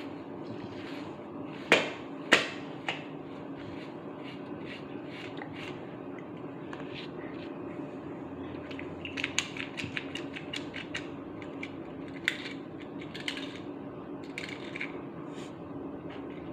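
Grooming brush drawn through a chow chow's thick coat in short scratchy strokes, with two sharp clicks about two seconds in and a quick run of ticks around the middle, over a steady low hum.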